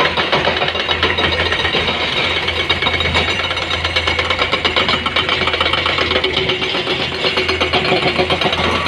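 Diesel engines of loaded dump trucks running as they drive off, a steady rapid clatter with a low hum underneath.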